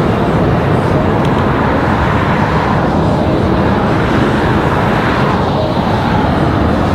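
Steady road traffic noise: cars driving through a city intersection, a continuous loud rumble.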